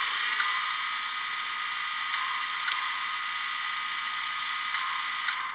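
Tsunami DCC sound decoder in an HO scale steam locomotive playing the steam turbo-generator sound through the model's small speaker: a steady high whine with hiss, levelling off at full pitch about half a second in. A single sharp click comes about two and a half seconds in, and the higher whine drops away at the very end.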